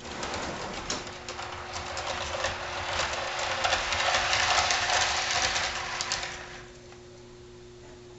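HO scale model freight cars rolling down a hump-yard grade, their wheels clattering and clicking over the rails, growing louder and then dying away about seven seconds in as a raised grass-clump retarder brings them to a stop.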